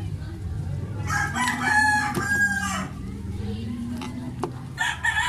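A rooster crowing twice: a crow about a second in lasting roughly two seconds, and another starting near the end, over a steady low hum.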